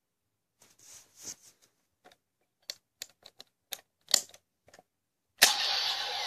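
Hard plastic clicks and clacks from a DX Genesis Driver toy belt as its lockseed is unlocked, taken off and a clear Energy Lockseed is fitted. Near the end a sharp click sets off a loud electronic sound effect from the toy's speaker.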